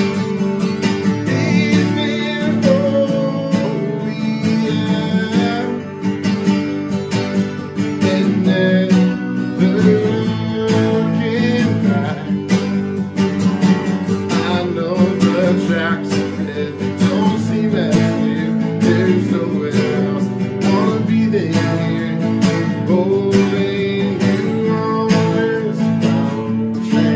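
Two acoustic guitars playing together: steady strummed chords with a picked melody line weaving over them.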